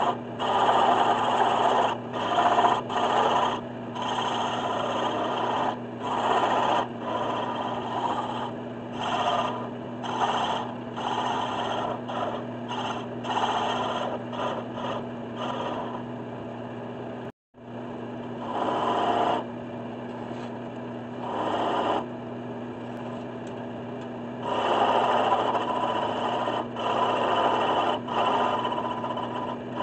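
Wood lathe running with a steady hum while a hand-held turning tool cuts a spinning Osage orange spindle, the cutting hiss coming and going in short strokes. The sound cuts out for a moment about halfway through.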